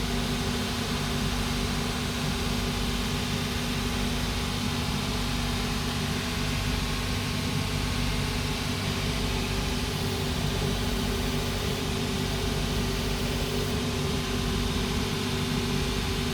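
Steady machine hum, an even drone with a constant low tone and hiss that does not change.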